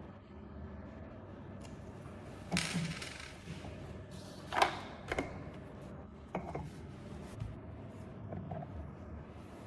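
Small metal parts of a belt sander clinking and knocking as the machine is dismantled to take out its armature: about half a dozen separate sharp knocks, the loudest about halfway through.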